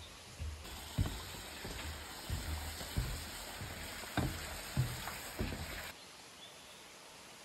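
A steady hiss of outdoor forest ambience. In the middle, a brighter hiss carries five soft thumps at uneven spacing.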